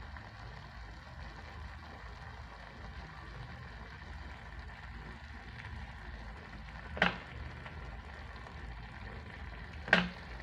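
Pot of beans simmering faintly on the stove, with two sharp knocks about three seconds apart near the end.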